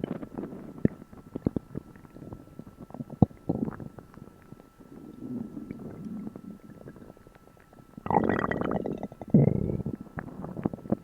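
A human stomach rumbling and gurgling while digesting a first meal in a long while. Small pops and clicks and short gurgles come first, then a soft low rumble. About eight seconds in comes the loudest part, a long gurgle ending in a faint rising squeak, followed by one more gurgle.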